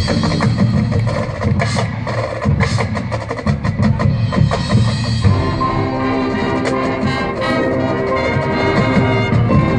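Marching band playing, with rapid drum and percussion hits for the first few seconds, then sustained band chords from about five seconds in.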